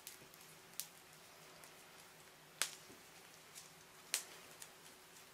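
Four faint, sharp clicks, spaced a second or two apart, as a spark plug cable is twisted out of its rubber plug boot by gloved hands, over a faint steady hum.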